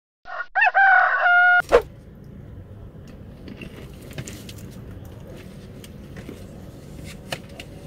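A rooster crowing sound effect, one loud crow of about a second and a half. After it, much quieter eating sounds from crispy fried chicken: low rustling with scattered small clicks and crunches.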